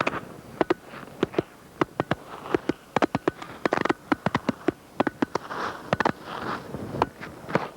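Cassette recorder's microphone dangling outside a moving van, knocking and scraping against the van body in many irregular sharp clicks, with short gusts of wind noise on the microphone.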